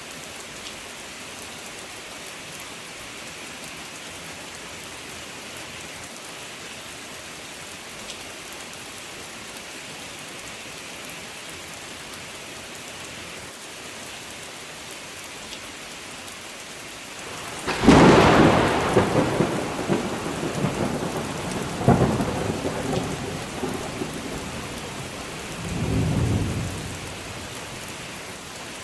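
Steady rain, then about two-thirds of the way through a sudden loud thunderclap that rolls on into rumbling, with a second sharp crack a few seconds later and a last low rumble near the end.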